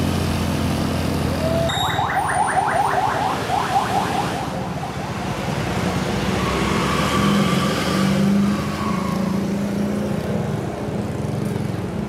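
Tour bus with its diesel engine running while its basuri 'telolet' horn sounds a fast warbling run of short notes, about five or six a second, from about two seconds in for roughly two and a half seconds. A fainter held horn note comes later.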